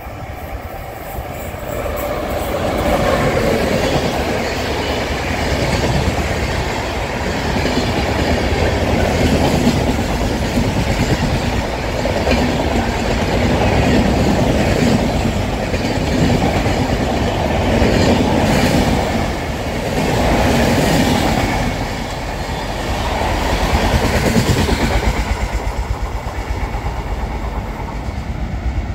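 An express passenger train hauled by a WAP-7 electric locomotive runs through close by at speed. The long rake of coaches rumbles past with wheels clattering rhythmically over the rail joints, swelling and ebbing, then fades over the last few seconds as the train draws away.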